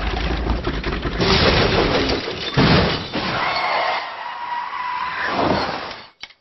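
A long, loud crash with smashing and breaking noise. A steady high tone is held through the middle, and the sound cuts off suddenly near the end.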